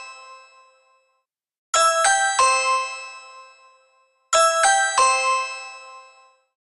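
Ring alert tone: a quick three-note electronic chime, sounded twice about two and a half seconds apart, each set ringing out over about two seconds. The fading tail of an earlier set is heard at the very start.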